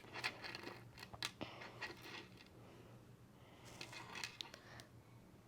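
Faint rustling and a few light clicks from small objects being handled, in two short spells separated by a quieter stretch.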